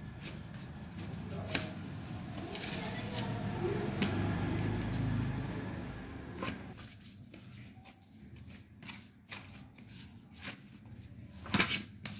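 Hands kneading soft naan dough in a steel plate: the dough is pressed and worked, with a few sharp knocks of hand and dough against the steel spread through, and small taps in between. This is the kneading stage, after water has been mixed in a little at a time to bring the flour together into a soft dough.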